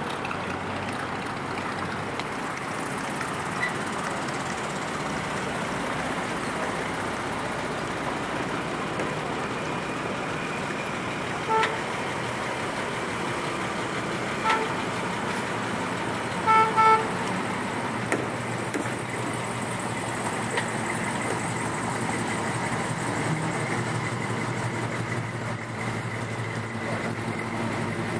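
Classic cars and trucks driving slowly past one after another, their engines running, with a deeper engine drone in the second half. Short car-horn toots sound around the middle, including a quick double toot.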